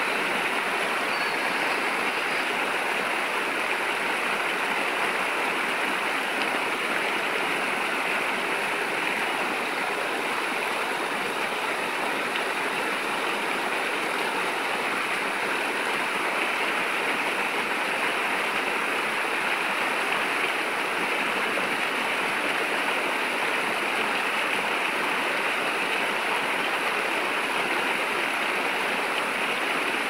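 Shallow rocky stream flowing, with water spilling in a small cascade over a log weir and splashing around a rock: a steady, even sound of running water.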